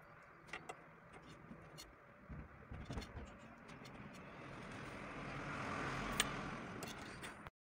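A road vehicle going by, its noise swelling over a few seconds and easing near the end, over small clicks and taps of a thin wire pin and a plastic tube being handled. The sound cuts off suddenly just before the end.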